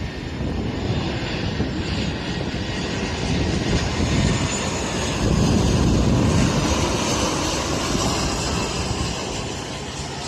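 Jet airliner's engines passing, a rushing noise that swells to a peak about halfway through and then fades, with a faint high whine.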